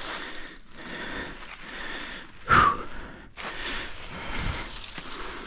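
Hard, heavy breathing close to the microphone, with one sharp ringing knock about two and a half seconds in.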